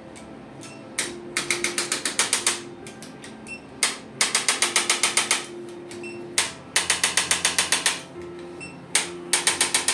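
Chiropractic adjusting gun firing rapid clicking strokes during a spinal adjustment. The clicks come in four bursts of about a second and a half each, a little under ten clicks a second, with short pauses between bursts.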